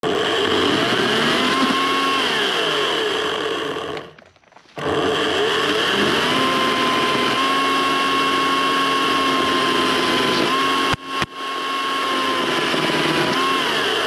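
Ryobi 14-inch electric chainsaw running and cutting brush and branches, its motor whine gliding up and down in pitch as it speeds up and bogs under load. It stops briefly about four seconds in, cuts out again with a couple of clicks about eleven seconds in, then runs on.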